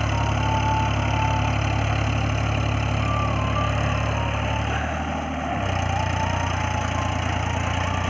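Sonalika tractor's diesel engine running steadily as the tractor works in deep mud, with a brief drop about five seconds in before it picks up again.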